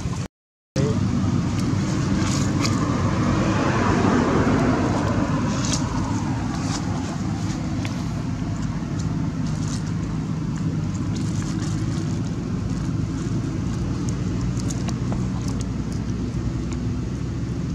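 Steady motor-vehicle and traffic noise, a low engine hum that swells a few seconds in as a vehicle passes. The sound cuts out briefly near the start.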